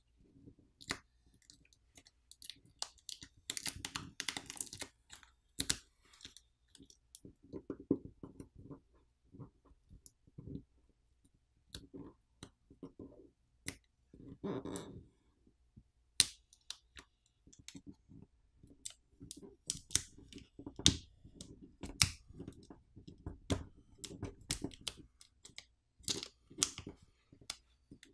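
Fingers pulling at a phone battery's pull-tab adhesive strip to peel the battery out of its frame: irregular crackling and sharp clicks, with short rustling stretches.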